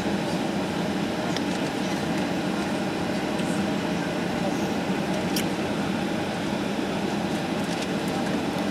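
Steady airliner cabin noise: the even rumble and hum of the jet engines and air-conditioning heard from inside the passenger cabin, with no rise or fall.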